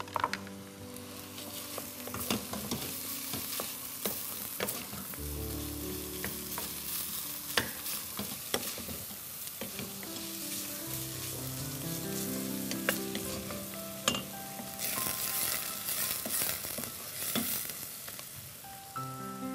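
Meat and onion filling sizzling as it fries in a pot, stirred with a wooden spoon, with scattered clicks and knocks of spoon and utensils. Soft background music with held chords plays underneath.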